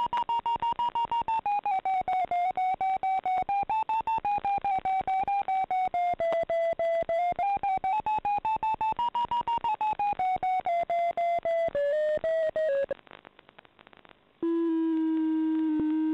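Electronic variometer tone from an RC glider's FPV system. Quick beeps, about five a second, rise and fall in pitch with the rate of climb while the glider is climbing. After a short quieter gap, a steady unbroken low tone sounds near the end, the signal that the glider is sinking.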